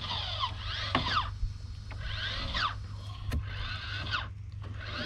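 Crank of a Maxx Air roof fan being turned to open the lid, its gearing whirring in four rising-and-falling sweeps about a second and a half apart, over a steady low hum.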